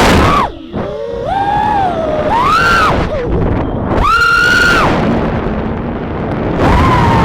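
Brushless motors of a 3-inch FPV quadcopter whining, the pitch climbing and dropping with each throttle punch, with bursts of rushing wind noise as it flies. The pitch drops sharply about half a second in, climbs again around two and a half and four seconds in, and surges once more near the end.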